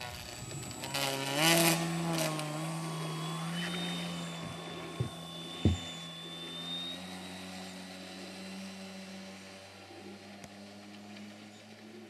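Radio-controlled model floatplane's motor and propeller revving up about a second in, then a steady drone that slowly fades as the plane moves away across the water. Two or three sharp knocks come near the middle.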